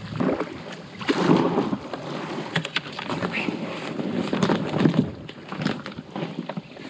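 Black Pike 5.0 inflatable packraft being paddled in and run aground on a pebble bank: water splashing, the hull rubbing over stones, and a run of sharp clicks and crunches of pebbles as the paddler gets out onto the gravel.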